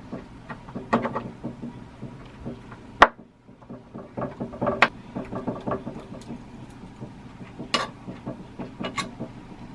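Irregular clicks, taps and knocks from handling old door hardware, with one sharp, loud click about three seconds in.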